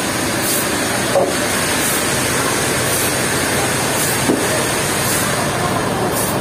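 Sawmill machinery running with a steady, dense noise and a faint high hiss that pulses about once a second. Two brief sharper sounds come through, about a second in and again near four seconds.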